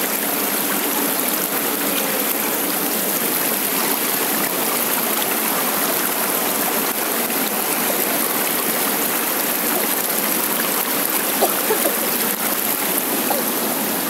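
Small rocky stream flowing and splashing over stones, heard close to the water as a steady sound of running water.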